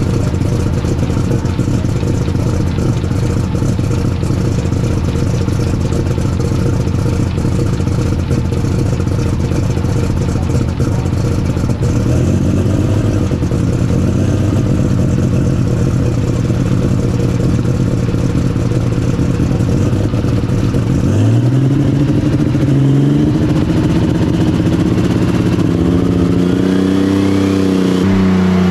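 Engine of a John Deere superstock pulling tractor idling steadily. From about three-quarters through it revs, its pitch climbing and wavering, with a high whine rising near the end.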